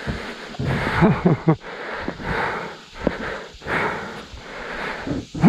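A man breathing hard, huffing and puffing in heavy breaths about a second and a half apart, with a few short grunts, winded from exertion.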